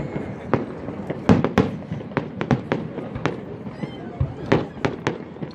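Fireworks going off: a rapid, irregular series of sharp bangs and crackles.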